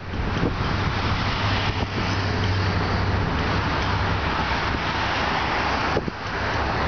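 Steady motor-vehicle noise: an engine running with a low hum under a broad rushing sound, easing slightly near the end.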